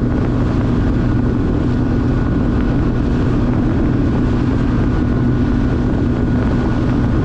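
An engine running steadily at an even speed: a constant hum with no change in pitch.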